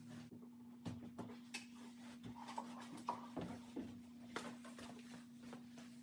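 Faint footsteps and a few light knocks from a small rustic wooden stand being carried out of a plywood camper shell, over a steady hum.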